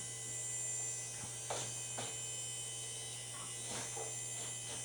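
Steady electrical hum and faint high whine of a running Power Macintosh 8100 and its CRT monitor, with a few soft clicks about one and a half, two and nearly four seconds in.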